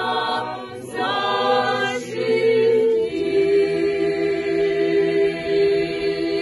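Unaccompanied group of women pilgrims singing an Orthodox hymn to the Mother of God. About halfway through they settle onto one long held note.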